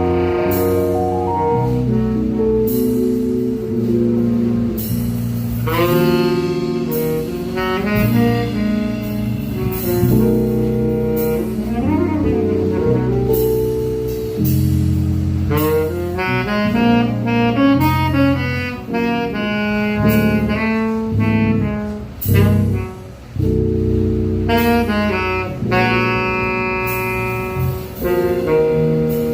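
Live jazz quartet playing a slow ballad: saxophone over keyboard, double bass and drum kit with cymbal strokes.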